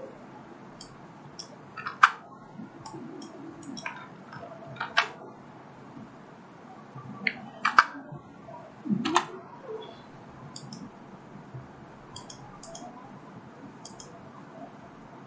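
Irregular clicks and taps from a computer keyboard and mouse, with a few sharper keystrokes among lighter ticks.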